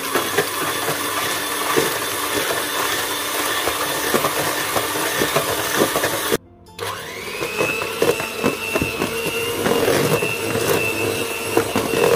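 Electric hand mixer whipping double cream and sugar into thick whipped cream, running steadily with many small clicks. It breaks off for a moment about six seconds in, then runs on with a whine that rises as it spins back up.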